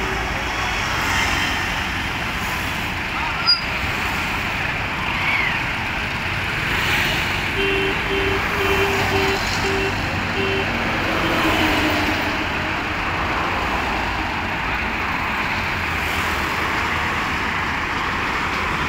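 Steady motor-vehicle and road-traffic noise. A sharp click comes about three and a half seconds in, and a quick run of about seven short beeps sounds near the middle.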